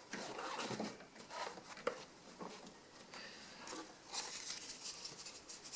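Faint rustling and scattered light taps of foam being handled and pressed into the gaps around a window air conditioner.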